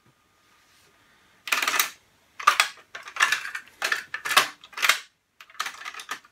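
About six short rattling clatters in quick succession, starting about a second and a half in: hands handling the opened Pioneer double cassette deck's mechanism.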